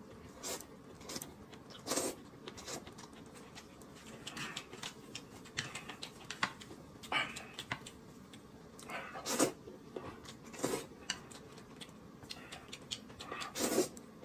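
A man eating a plate of noodles: several loud slurps as he sucks up mouthfuls, with chewing and small clicks in between.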